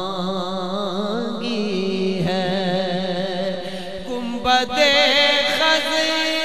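A man singing a naat, drawing out a long wordless melismatic line whose pitch wavers and slides up and down, with a louder new phrase about four and a half seconds in.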